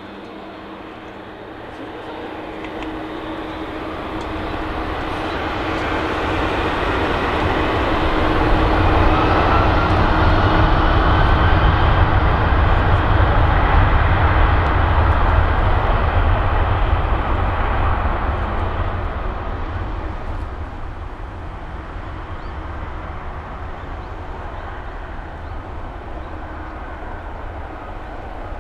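Jet airliner passing: a broad engine rumble that swells over about ten seconds, peaks, and fades away again, with a steady tone under it that drops out soon after the peak.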